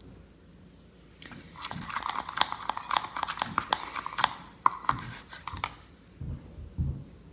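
Glue-and-Tide slime mixture being stirred: a dense run of quick clicks and squelches lasting about four seconds, followed by a few soft low thumps near the end.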